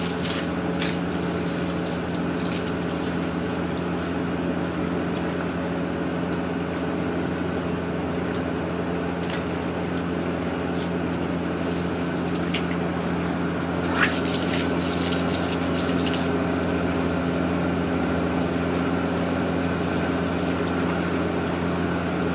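A steady low motor hum, with scattered water splashes from nurse sharks and stingrays thrashing in shallow water; one louder splash about fourteen seconds in.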